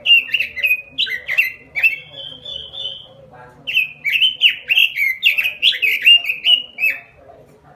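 Pekin robin (red-billed leiothrix) singing full song: quick runs of whistled, down-slurred notes, a brief higher held phrase, then a short pause about three seconds in before a longer fast run.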